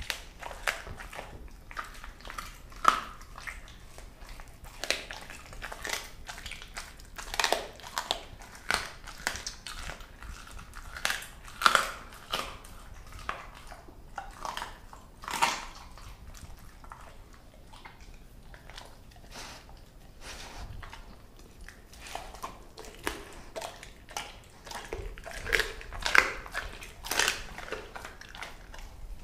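A Doberman chewing and crunching raw chicken bones, with irregular sharp cracks of bone between softer wet chewing and a quieter pause about two-thirds of the way through.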